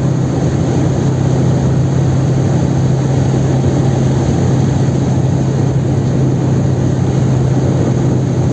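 Chevrolet Kadett 1.8's naturally aspirated four-cylinder engine droning at steady high-speed cruise, heard inside the cabin, with constant revs and a heavy rush of road and wind noise.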